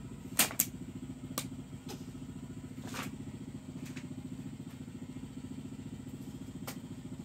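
Steady low engine hum with a fine, even pulse, and a few short clicks over it.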